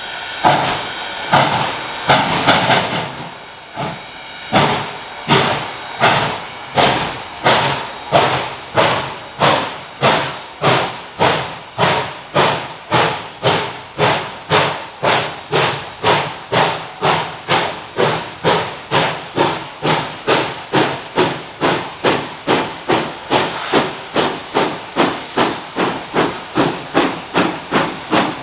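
Exhaust beats of Reading & Northern 425, a 4-6-2 Pacific steam locomotive, accelerating from a start: the chuffs quicken from about one and a half to about two and a half a second. A steady hiss of steam runs under the first few beats.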